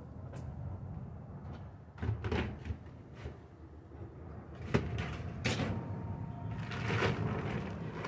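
Irregular knocks and clatter of objects being handled and set down, with sharp hits at about two seconds, just before five and around five and a half and seven seconds.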